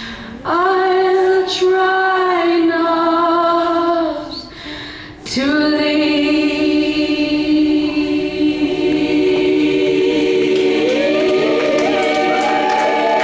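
Layered a cappella voices singing held chords in close harmony, like a choir, with a fresh chord coming in about half a second in and again about five seconds in, and one voice rising near the end.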